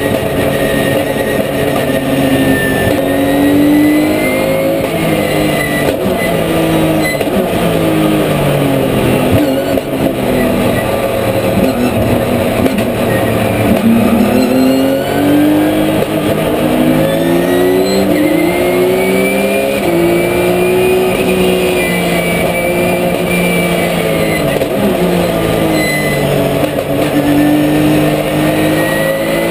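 Porsche 997 GT3 Cup's flat-six race engine heard from inside the cockpit under racing load, its pitch climbing through the gears and falling away under braking, with longer drops about a third of the way in and again near the end.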